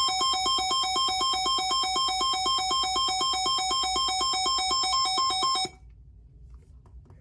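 Sangean CL-100 weather radio's alert siren sounding: a loud electronic warble that switches rapidly back and forth between two pitches, then cuts off suddenly near the end.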